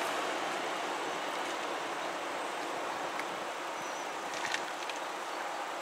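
Steady noise of a Class 150 diesel multiple unit running slowly past the level crossing, with a few faint clicks about two thirds of the way through.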